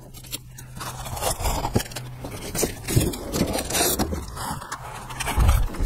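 Cardboard packaging scraping and rustling as a large solar panel is handled and lifted out of its flat box, with irregular short scrapes and knocks.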